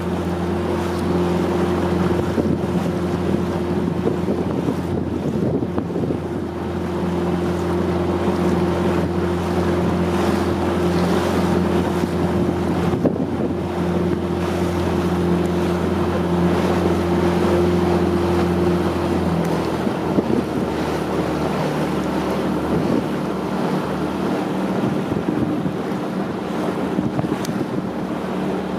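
Steady hum of a motorboat engine under wind buffeting the microphone and the wash of open water; the engine note drops a little about two-thirds of the way through.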